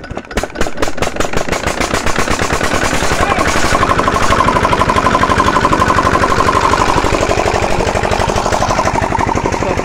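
Old Peter diesel engine running: its exhaust beats pick up speed and grow louder over the first few seconds, then settle into steady, rapid firing.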